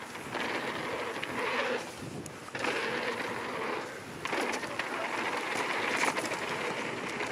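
Mountain bike tyres rolling fast over a hard-packed dirt trail, a continuous rushing noise with small rattles and ticks from the bike, mixed with wind on the camera microphone. The rush drops briefly twice, about two and four seconds in.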